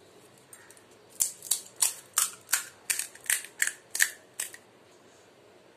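Crisp, hollow pani puri shell crackling as a thumb presses in and breaks a hole in its top. About a dozen short, sharp crunches come over some three seconds, roughly three a second.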